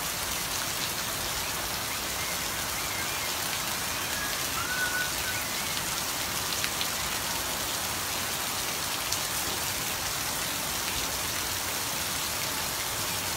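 Steady, even hiss, with a few faint short chirps about four to five seconds in.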